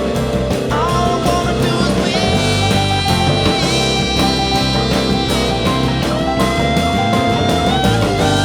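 A rock band playing an instrumental passage: a lead guitar holds long, sustained notes that bend in pitch, over a steady drum beat.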